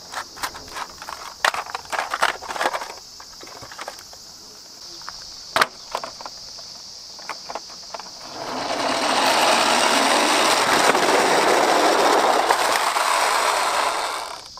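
Plastic toy articulated bus rolling down a board ramp: a steady rolling rumble of its plastic wheels for about six seconds that stops abruptly near the end. Before it come light clicks and knocks of the plastic toy being handled.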